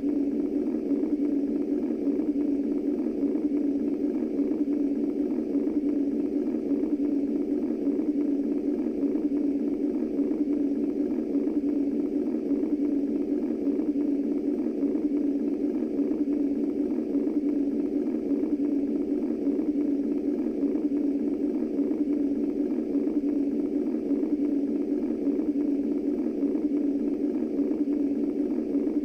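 Womb white noise: a steady, unbroken low, muffled whoosh with no beat or change.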